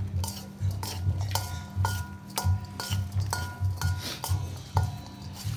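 Metal spoon knocking and scraping against a stainless steel mixing bowl as a beef larb salad is tossed, about two knocks a second, each leaving the bowl ringing briefly.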